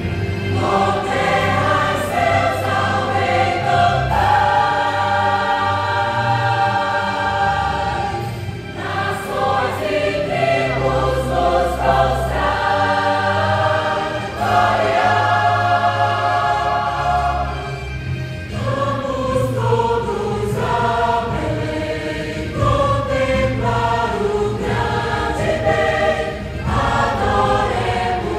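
Church choir singing a Christmas cantata over an instrumental accompaniment with a steady bass line. The choir holds two long chords, about four seconds in and again around fourteen seconds in, with moving passages between them.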